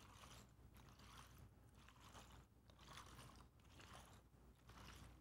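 Soil suspension sloshing faintly inside a rubber-stoppered 1,000 mL sedimentation cylinder as it is turned upside down and back, a soft swish about once a second. The cylinder is being agitated to disperse the soil before hydrometer readings.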